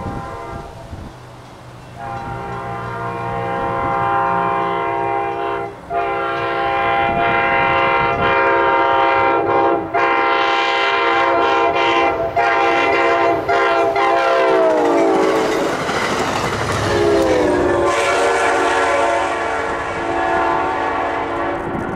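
Amtrak or CTrail GE Genesis diesel locomotive's multi-chime air horn blowing a long series of blasts with short breaks as the train approaches; about fifteen seconds in, the whole chord slides lower in pitch and carries on at the lower pitch.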